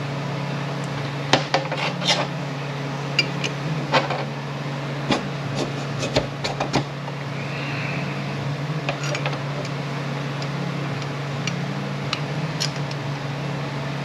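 Hand tools scraping, clicking and tapping against the plastic linkage-shaft bushing of a 62TE transmission as it is worked off the shaft, in scattered sharp strokes. A steady low hum runs underneath.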